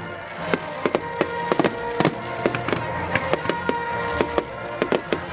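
Fireworks crackling: many sharp, irregular cracks and pops, several a second, over music playing in the background.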